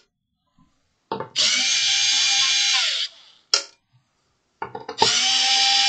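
Cordless drill-driver backing screws out of a metal ECU case in two runs of about a second and a half each. Each run winds down with a falling whine. A sharp click comes between the two runs.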